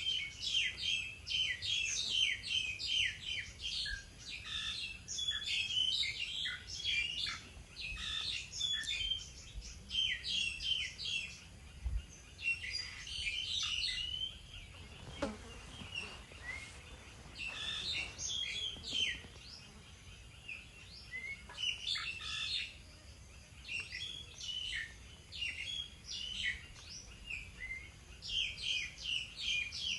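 Several small songbirds chirping busily, with many short, high chirps overlapping one another.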